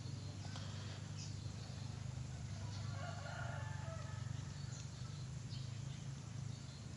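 A rooster crowing once, about three seconds in, over a steady low hum.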